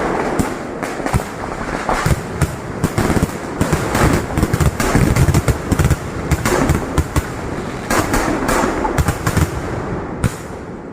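Kerala vedikettu firecrackers going off in a rapid, irregular barrage: dozens of sharp bangs over a continuous crackle, easing slightly in the last second.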